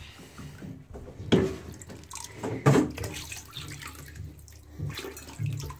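Water sloshing and splashing in a bathtub as a plastic cup scoops and pours it, with two louder splashes, one about a second and a half in and one a little before the three-second mark.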